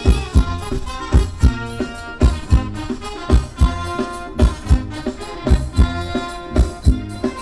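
Live Thai ramwong dance band playing an instrumental passage: a steady heavy drum beat, strokes often paired about once a second, under held chords and a melody line.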